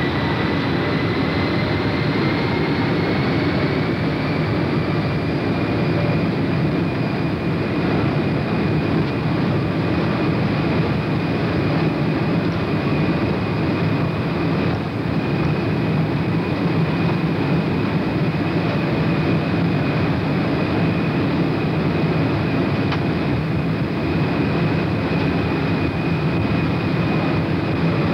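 Boeing 747 cabin noise from the jet engines: a steady rumble with a thin whine on top. The whine rises slightly in pitch over the first few seconds, then holds steady while the aircraft taxis.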